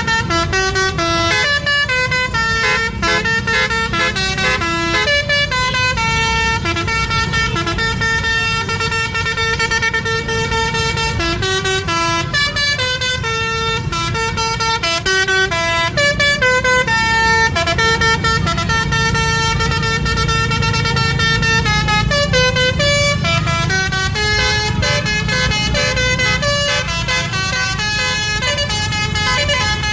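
A bus's Basuri multi-tone musical air horn (telolet) playing a quick tune of several notes a second, with the bus engine running underneath.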